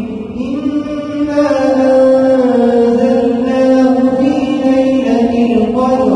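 A man's voice chanting Arabic prayer recitation in a slow, melodic style, holding long notes that glide up and down in pitch. There is a brief break for breath at the start before the next phrase.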